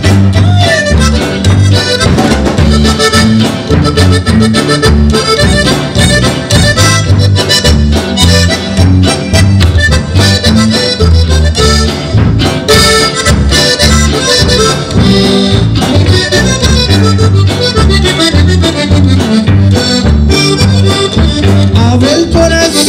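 Conjunto band playing an instrumental break with no singing: a Hohner button accordion carries the melody over bajo quinto, electric bass and drums.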